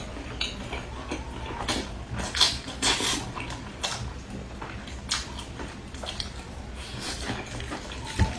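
Dishes and utensils clinking and clattering in short, irregular clicks, over a steady low hum.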